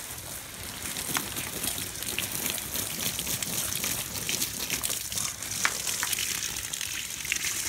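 A stream of water from a garden hose splashing steadily onto plant leaves and soil, with many small spatters and drips. The plants are being rinsed off after a soap spray for whiteflies.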